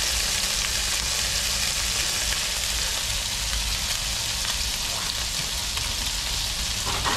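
Trout fillets sizzling in olive oil and butter in a cast-iron skillet over high heat: a steady frying hiss.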